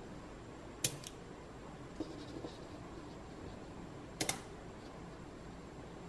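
Small gold-plated magnetic balls clicking together as slabs of them are snapped into place. There is a sharp double click about a second in, softer taps around two seconds, and a louder double click just after four seconds.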